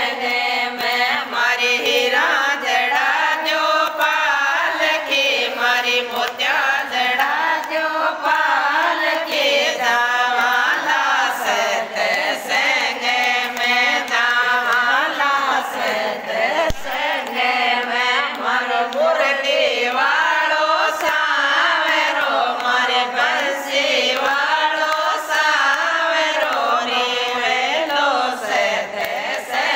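A group of women singing a Hindi devotional bhajan together in a chant-like unison, over a beat of sharp taps.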